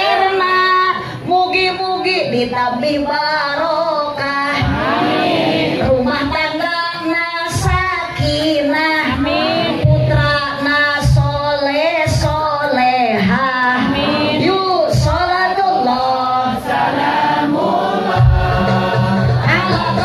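A woman singing a wavering, ornamented melody into a microphone over music, amplified through a PA. A heavy low beat comes in near the end.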